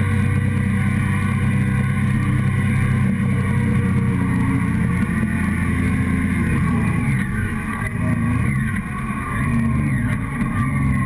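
Motorcycle engine running under way, heard close up from the fuel tank. The revs hold steady, then drop and climb again about seven to nine seconds in.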